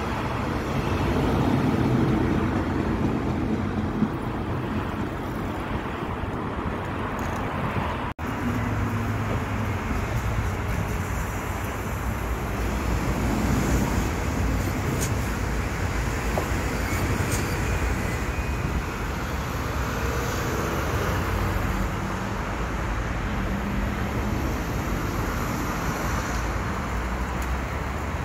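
Steady rumble of passing vehicles, with a brief dropout about eight seconds in.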